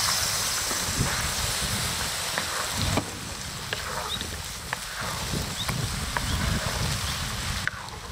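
Spicy chicken stew simmering in a wide cast-iron cauldron pan as a wooden spatula stirs it, with scattered small pops and ticks over a steady low wind rumble on the microphone.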